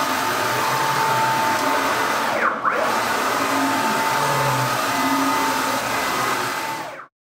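NEMA 23 open-loop stepper motors driving the ball screws of a PrintNC steel-frame CNC router through rapid moves at about 15 m/min, a loud steady whirr with a whine. About two and a half seconds in, the whine drops and climbs back as the gantry slows, reverses and speeds up again. It stops abruptly near the end.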